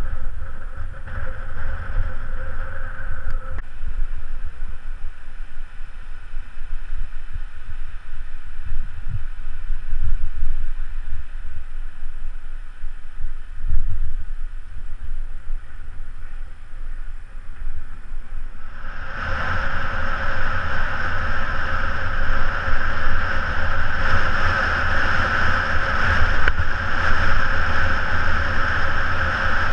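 Wind buffeting the microphone of a bicycle-mounted action camera while riding, a continuous low rumble. About two-thirds of the way in, a steadier, louder rushing hiss joins it and carries on.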